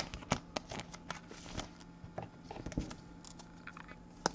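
Trading cards being handled: scattered light clicks and taps of card stock sliding and being set down, over a faint steady hum.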